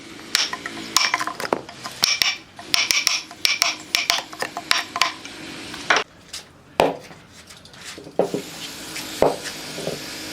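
Hand tools working wood: a quick run of sharp, ringing metallic taps and clinks, thinning after about six seconds to a few scattered knocks and some scraping.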